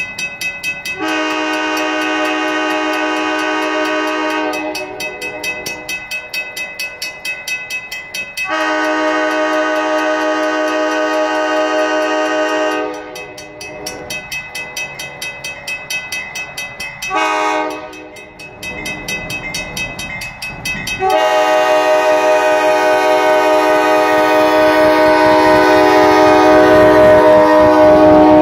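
New Haven 2019 diesel locomotive's multi-note air horn sounding the grade-crossing signal: long, long, short, long, with the last blast held and growing louder as the train nears. Between blasts, something rings rhythmically, about twice a second.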